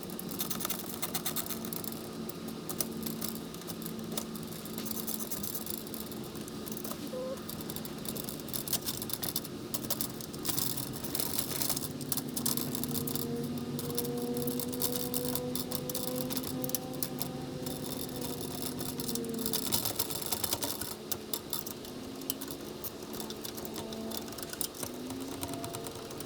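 Small metal clicks and rattles of avionics rack hardware being handled and fitted, over a steady hum, with a wavering tone through the middle stretch.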